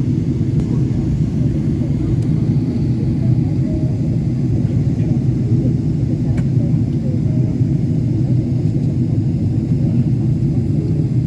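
Steady low rumble of a Boeing 777-300ER in flight, the airflow and GE90-115B engines heard inside the cabin, while the airliner circles in a holding pattern.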